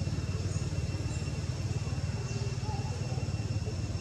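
Steady outdoor background: a low, even rumble like distant engine noise, with thin steady high tones above it and a few faint high chirps.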